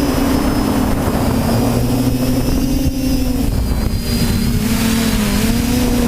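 TBS Discovery quadcopter's electric motors and propellers droning steadily, with a rushing noise underneath. The pitch steps down and back up and wavers with throttle changes.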